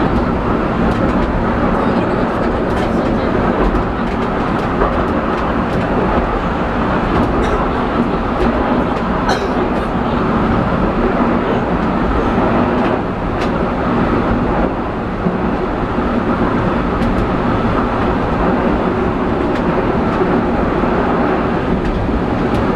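Penang Hill Railway funicular car running along its rails, heard from inside the car: a steady rolling rumble with a few faint clicks.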